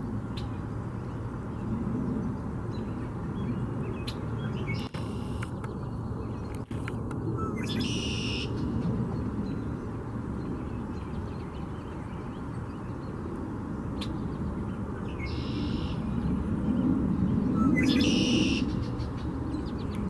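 Red-winged blackbird singing: four short, buzzy, trilling song phrases a few seconds apart, the second and fourth reaching higher and fuller. A steady low rumble runs underneath and grows louder near the end.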